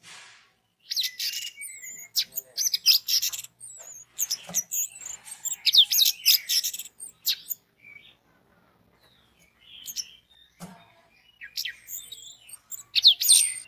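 Orange-headed thrush singing in rapid phrases of high, sliding whistles and chirps, with short pauses between the phrases.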